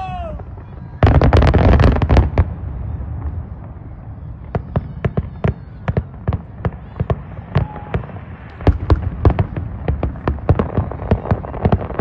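A dense cluster of loud bangs about a second in, followed by a long, irregular run of sharp pops and cracks, several a second, that continues to the end.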